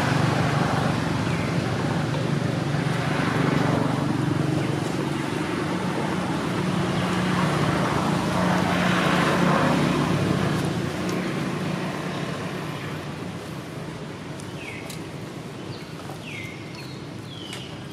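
A motor vehicle's engine running steadily nearby, a low hum that fades away over the last several seconds. A few short high chirps come near the end.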